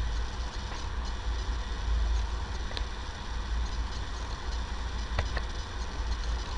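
Steady low electrical hum with hiss from the recording setup, with a few faint clicks, a close pair of them about five seconds in.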